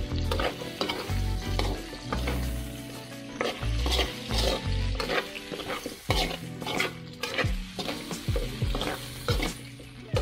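A slotted metal spatula repeatedly scrapes and stirs sliced vegetables around a metal wok while they sizzle in hot oil during a sauté.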